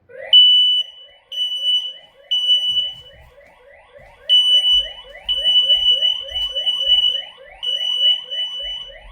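X-Sense smoke and carbon monoxide detector sounding its alarm: loud, shrill, high-pitched beeps, first three short beeps and a pause, then longer beeps. Under the beeps runs a fast rising chirp, about four a second.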